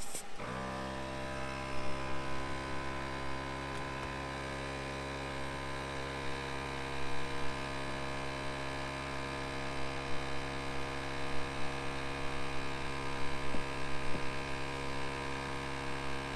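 Onboard air compressor under the Jeep's hood switches on about half a second in and runs with a steady, even hum, inflating a tire back up to road pressure after it was aired down for the snow.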